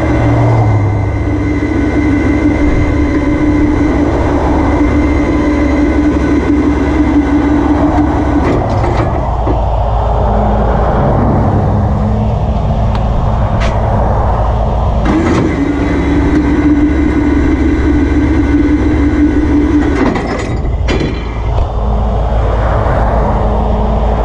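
Tow truck's engine running with the hydraulics engaged, a steady whine over a low rumble as the winch pulls a small car up the tilted rollback bed. The whine drops out about nine seconds in, comes back about fifteen seconds in, and breaks off briefly near twenty seconds, with a few sharp clicks at those changes.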